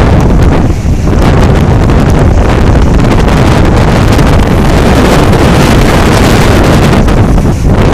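Hurricane Sandy's storm wind blowing hard against the microphone: loud, continuous buffeting that eases only briefly twice.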